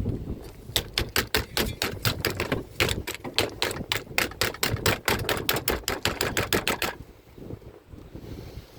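A rapid, even series of sharp clicks or taps, about four to five a second, stopping abruptly about seven seconds in.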